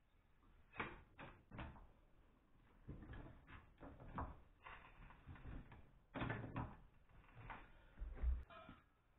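Irregular knocks and clunks of hand work around a steel floor jack, its handle being moved and metal parts handled, about a dozen short hits at uneven spacing.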